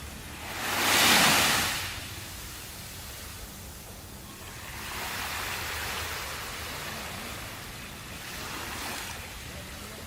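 Sea waves breaking and washing ashore: a loud surge about a second in, then a broader, softer wash in the middle and a smaller one near the end, over a steady hiss of surf.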